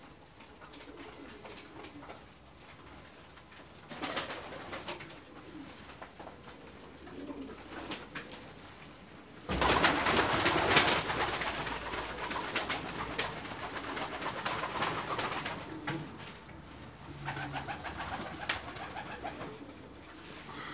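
Domestic pigeons cooing in a small loft. About halfway through comes a sudden loud flurry of flapping wings as a bird takes off and flies past, and fluttering goes on for several seconds after.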